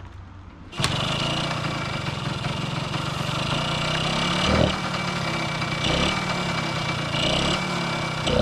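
A 1970s small trail motorcycle's engine is kick-started and catches about a second in. It runs with three short throttle blips, each a quick rise in revs, spaced about a second and a half apart.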